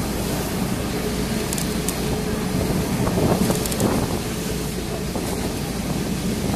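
Traditional Lisbon tram running along street track, heard from on board: a steady rumble of the wheels on the rails with wind on the microphone, and a few short high clicks or squeaks from the running gear.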